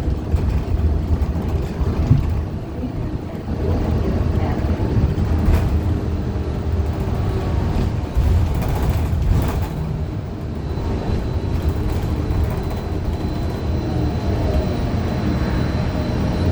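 Ride noise inside a 2015 Gillig 40-foot low-floor CNG transit bus: steady low rumble of its Cummins Westport ISL G engine and drivetrain, with a few short rattles or knocks. A faint high whine comes in about two-thirds of the way through. The bus is said to have a bad Allison B400R transmission.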